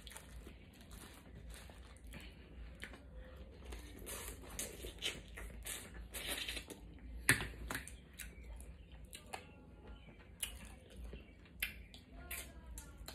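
Close-up eating sounds of snow crab legs in butter sauce: shells cracking and crunching, meat sucked from the shell, wet chewing, and the plastic boil bag crinkling. One sharp snap about seven seconds in is the loudest sound.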